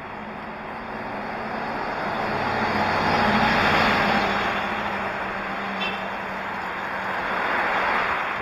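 A concrete mixer truck passing close on the road, its engine and tyre noise swelling up about three seconds in and fading, then a car going by near the end, over steady road and wind noise.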